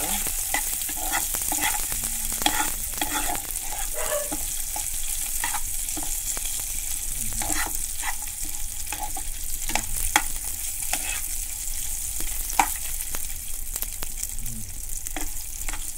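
Chopped cashews, almonds and raisins sizzling steadily in ghee in a non-stick pan on low-medium heat, while a steel spoon stirs and scrapes them. The spoon makes frequent light clicks against the pan, with three sharper clinks scattered through.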